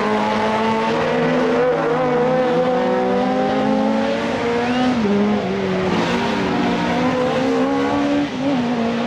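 Several Super 1600 rallycross cars racing, their engines revving together as overlapping notes that climb slowly. Pitch drops briefly about five seconds in and again near the end.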